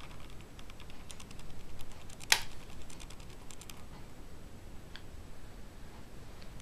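Makeup brush sweeping powder highlighter over the cheekbone: faint, scratchy clicking from the bristles, with one sharper click a little over two seconds in.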